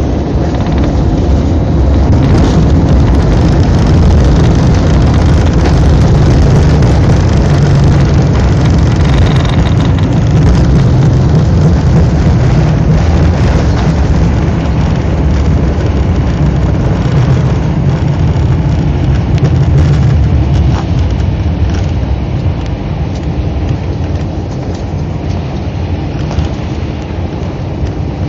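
Jet airliner's landing rollout heard from inside the cabin: a loud, steady low rumble of the engines and wheels on the runway, easing off over the last several seconds as the plane slows.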